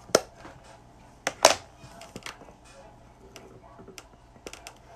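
Scattered light clicks and taps, irregular like typing or small objects being handled. The loudest pair comes about a second and a half in.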